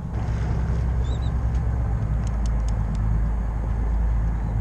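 Steady low rumble of the fishing boat's engine with wind buffeting the microphone, the rumble swelling about halfway through. A few faint clicks come near the middle.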